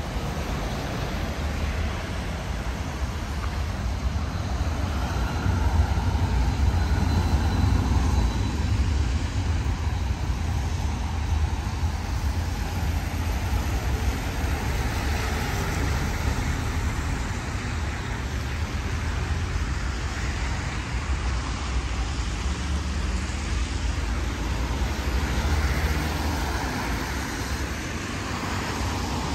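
Road traffic going by: motor vehicles passing with a steady rumble and tyre noise, swelling louder about six to nine seconds in.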